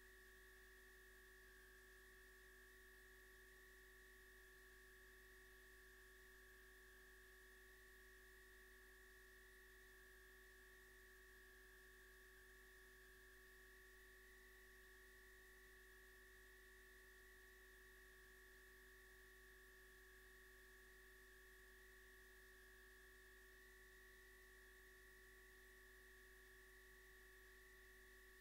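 Near silence: a faint steady electrical hum with a thin high whine.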